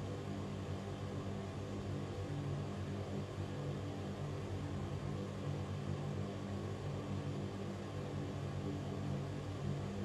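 Ventilation fan running steadily: an even rush of air over a low hum made of several steady tones.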